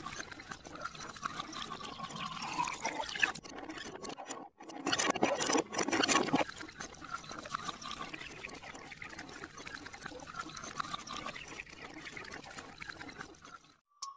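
Liquid pouring and trickling onto a foam-covered plastic toy backhoe loader, louder for a couple of seconds about five seconds in.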